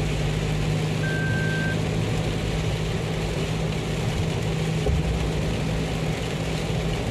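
A vehicle running steadily, a low hum under an even wash of noise, with a brief thin whistle-like tone about a second in.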